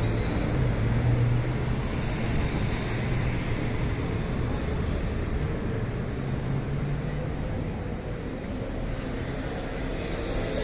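Street traffic: city buses and cars running past, a steady rumble with a low engine hum that swells twice and fades.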